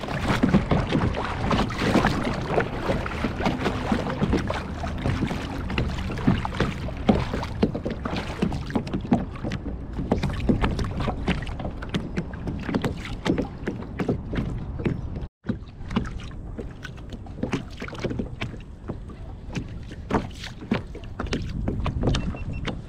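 Small waves slapping and lapping against a plastic fishing kayak's hull, with many short knocks and splashes over a steady rush of wind on the microphone. The sound drops out completely for a moment about two-thirds of the way through.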